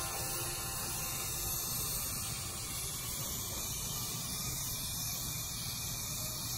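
A steady hiss with a low rumble beneath it.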